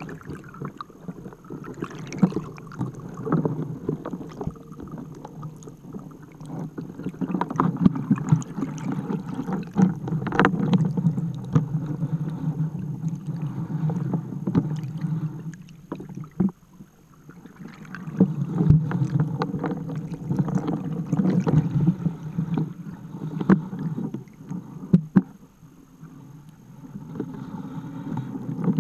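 Water rushing past an underwater camera towed inside a trawl net, swelling and easing in surges, with scattered knocks and clicks.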